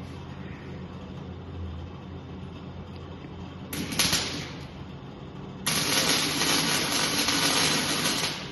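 Welding arc hissing: a brief half-second burst, then a steady run of about three seconds that cuts off suddenly.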